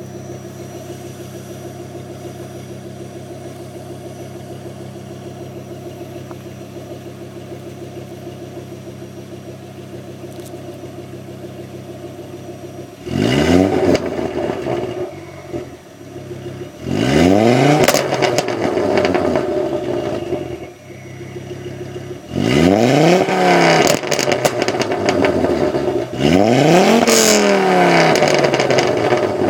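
Ford Focus RS engine through a decat exhaust (Bastuck pipes replacing the catalytic converter and centre silencer, original rear silencer kept), idling steadily, then revved four times in the second half, each rev rising and falling in pitch.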